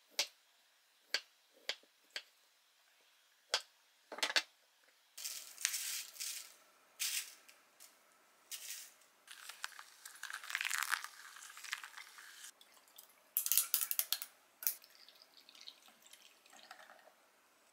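A knife cutting a peeled kiwi on a wooden cutting board, about six sharp taps in the first four seconds. Then soft pouring and trickling sounds of hand pour-over coffee through a paper filter dripper, ending with coffee poured into a glass of milk over ice.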